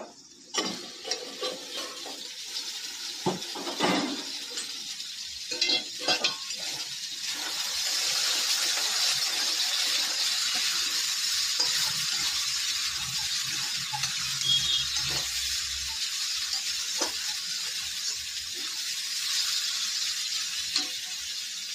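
Diced pumpkin, potato and onion frying in oil in an aluminium kadai: a steady sizzle, growing louder about eight seconds in, with a metal spatula scraping and stirring against the pan. A few clinks of metal utensils in the first few seconds.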